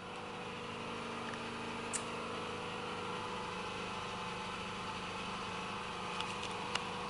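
Petrol generator running steadily, a constant engine hum. A sharp click right at the start and a smaller one about two seconds in.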